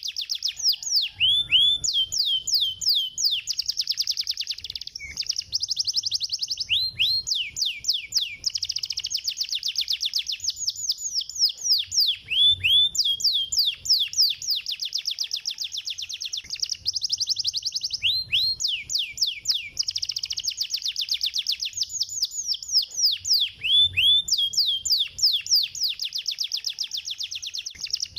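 Domestic canary singing in rapid trills and downward-sweeping whistled notes, in phrases of a few seconds with brief breaks. The same song sequence repeats about every six seconds.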